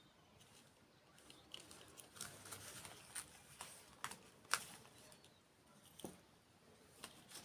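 Soft, scattered clicks and crackles of someone eating in ASMR style, with one sharper click about four and a half seconds in.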